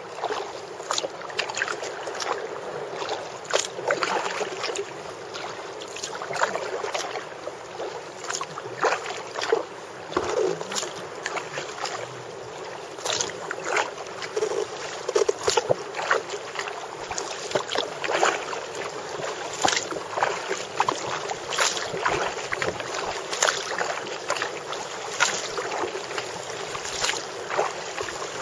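Kayak paddle strokes splashing into calm water beside a Prijon Seayak sea kayak, a splash every second or two, over a steady background hiss.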